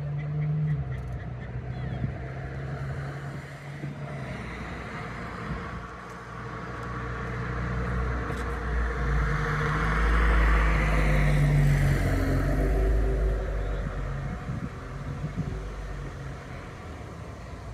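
A vehicle going past, its rumble swelling to a peak about ten to twelve seconds in and then fading away.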